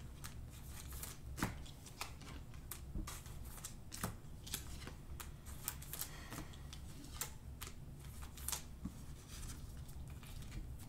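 Panini Prizm trading cards handled and flipped through by hand: faint, irregular clicks and slides of cards and their plastic sleeves against one another.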